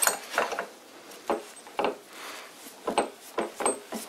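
Irregular light metallic clicks and knocks, about eight in four seconds, as a steel nut and washer are turned onto the threaded end of a lathe spindle.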